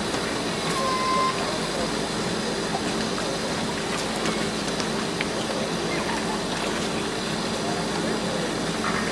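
Steady hum of machinery running, with people's voices talking indistinctly in the background.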